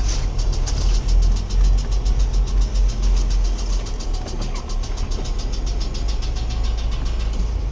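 Renault Logan driving through snow, heard from inside the cabin: a steady low engine and road rumble, with a fast, even ticking about six times a second that fades out near the end.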